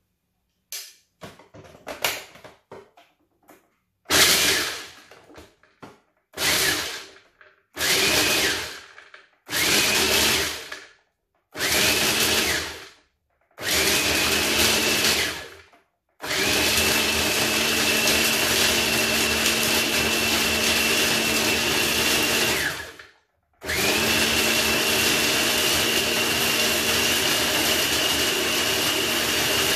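Small electric food processor chopping dates, almond pieces and peanut butter into a sticky paste. After a few light clicks of the lid's feed tube, it is pulsed six times, each burst spinning up with a rising whine and winding down. It then runs steadily twice for about seven seconds each, with a short pause between.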